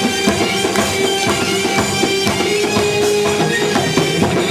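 Live Middle Eastern belly-dance music from a band, with a steady beat of hand percussion under long held melody notes.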